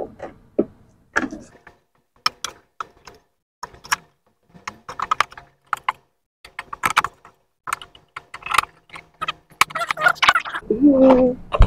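Hard plastic clicking and knocking from a plastic first-aid wall cabinet being handled as its plastic sliding door is worked back into place: a stream of short, irregular clicks.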